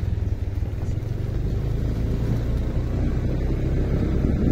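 Motorcycle engine running steadily while riding, a low, even engine sound.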